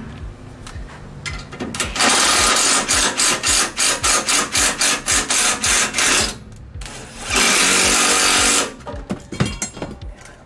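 DeWalt cordless driver running the bolts of a go-kart seat bracket in two bursts: a pulsing run of about four seconds starting about two seconds in, then a steady burst of about a second and a half.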